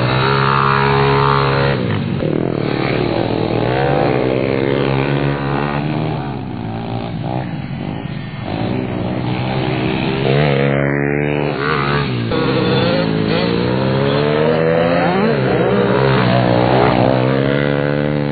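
Engines of a 146cc pit bike and a 150cc Orion pit bike running hard, pitch rising and falling repeatedly as the riders work the throttle and shift gears, the two engines overlapping at times.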